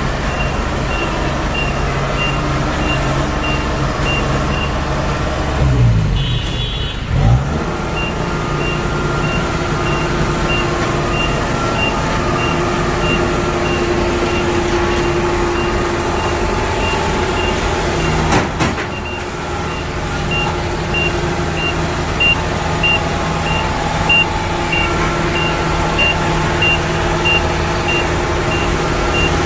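Kubota DC-70 combine harvester's diesel engine running as the machine travels on its rubber tracks, its travel alarm giving a steady high beep a few times a second. About six seconds in the engine's pitch dips briefly and picks up again.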